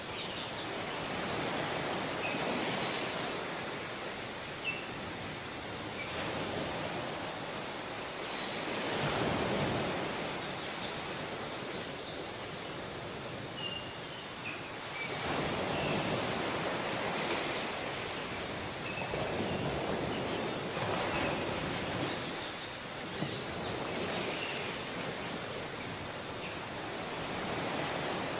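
Waves breaking and washing up on a tropical beach, the surf swelling and falling back every few seconds. Faint short high chirps are scattered over it.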